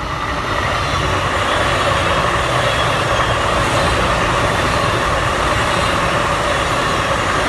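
Long Island Rail Road Bombardier M3 electric multiple-unit train passing close by: the steady rumble and rush of its wheels on the rails, swelling over the first second and then holding loud and even.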